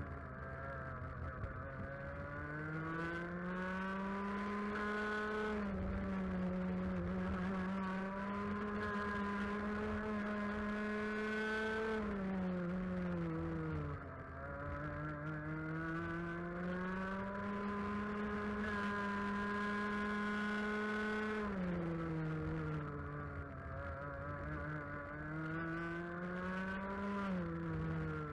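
125cc TAG two-stroke kart engine heard onboard at race pace. The revs climb steadily along the straights, fall sharply under braking about twelve and twenty-one seconds in and again near the end, then pick up again out of the corners.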